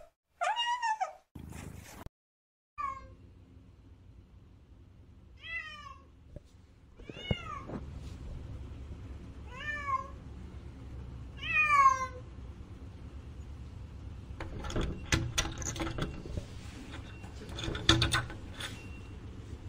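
Cat meowing about six times, each a short call that falls in pitch. Near the end comes a run of clicks and knocks.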